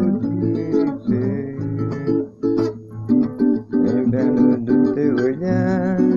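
Acoustic guitar music: chords strummed and notes picked in a song's instrumental passage.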